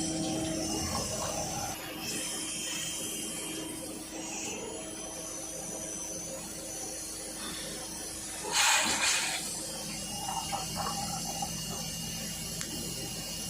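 CNC turning lathe running with a steady mechanical hum. A short, loud rush of noise comes about eight and a half seconds in.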